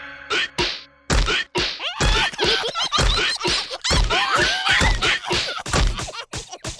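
Cartoon slapstick sound effects: a quick run of thuds and whacks, about two a second, starting about a second in, with squeaky cartoon-character cries between the blows.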